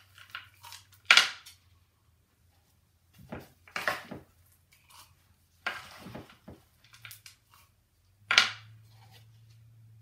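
Hand stirring a bowl of dry seeds, nuts and dried fruit, with a few sharp knocks and clatters of a ceramic mug and dishes being handled on the counter. The loudest knocks come about a second in and near the end.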